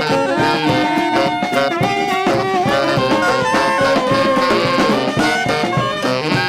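Brass street band playing live: several horns playing different lines at once over a steady beat.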